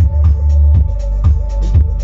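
Bass-heavy electronic music played loud through a Sony Xplod 12-inch car subwoofer, with a deep kick drum hitting about twice a second over a sustained bass line.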